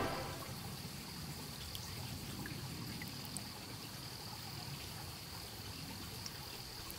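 Small stream trickling over rocks: a steady, quiet water noise, with a thin, steady high-pitched insect drone above it and a few faint short chirps. The last of the orchestral music dies away at the very start.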